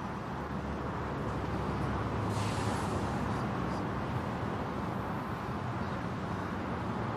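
A heavy vehicle's engine running steadily, with a short burst of air hiss about two and a half seconds in.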